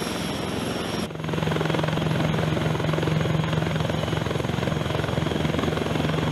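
Eurocopter Tiger attack helicopter running with its rotor turning and its twin turboshaft engines at power, hovering just above the ground: a steady rotor and turbine noise with a low hum. It jumps louder about a second in.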